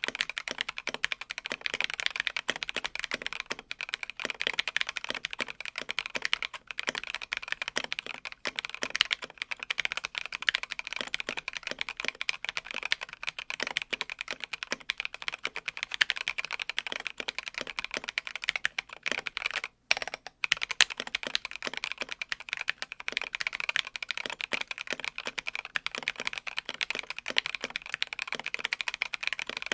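Continuous fast typing on a KBD67 Lite R3 gasket-mount custom mechanical keyboard with Queen linear switches and MT3 Cyber ABS keycaps: a dense stream of keystrokes, broken by one brief pause about two-thirds of the way through.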